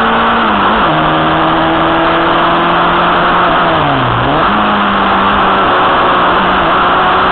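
Onboard sound of a Formula Junior racing car's Fadini-tuned Fiat Fire 1.2 four-cylinder engine running hard. The revs step down about a second in, fall further to a low around four seconds in as the car slows for a bend, then jump back up and hold steady, with a constant rush of wind and road noise.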